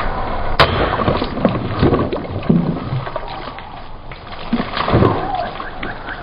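Water splashing and sloshing from cut plastic bottles, with a sharp crack about half a second in and dull thuds. Near the end a repeated high chirp starts, about three a second.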